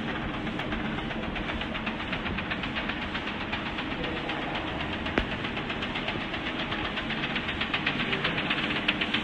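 WeenTek WK-300 Pro A3 DTF printer running a print job in bidirectional high-speed mode, its mechanism ticking fast and evenly, with one sharp click about five seconds in.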